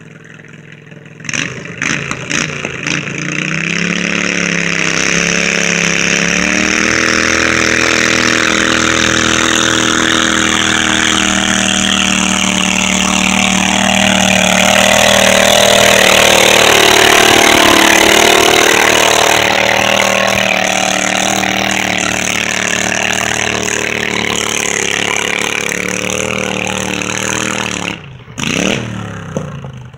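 Garden tractor engine running hard under load while pulling a weight-transfer sled. It revs up in bursts at first, then climbs to a steady, loud pull. Around the middle the engine note dips and then comes back up, and the sound cuts off abruptly near the end.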